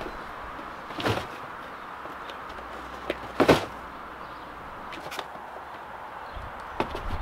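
Cardboard boxes being set down on one another in a stack: four or five short dull knocks, the loudest about three and a half seconds in.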